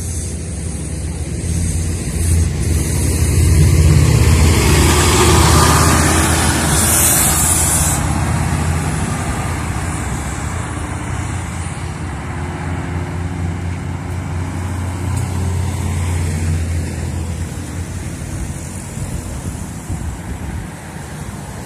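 City bus engine running, with a low drone that swells a few seconds in and then slowly fades. A short hiss of air sounds about seven seconds in.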